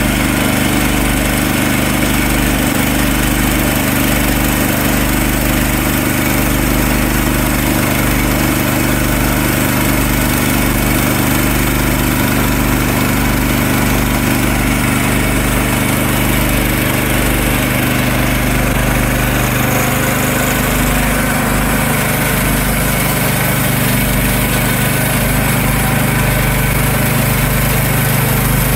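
Gas engine of a Woodland Mills portable sawmill running steadily, with a slight change in tone about twenty seconds in.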